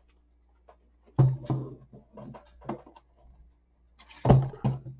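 Long cardboard kit box handled and opened on a table: a series of knocks, thumps and scuffs starting about a second in, with two louder thumps, one early and one near the end.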